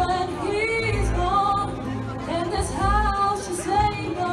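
A woman singing live into a microphone through a PA system, a melody of held, gliding notes over an accompaniment with a low bass line.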